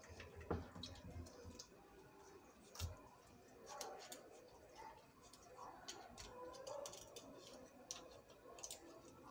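Faint clicking and scraping of a sharp knife cutting along a traíra's rib cage, the blade ticking over the fine rib bones, with a couple of soft knocks.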